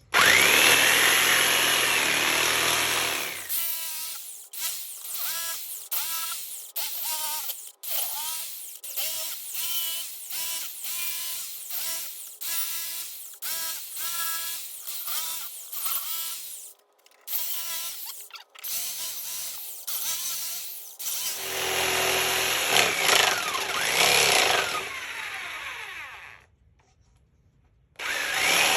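Power tool cutting notches in plywood: it runs steadily for a few seconds, then in many short trigger bursts of about two a second, and then steadily again before stopping near the end.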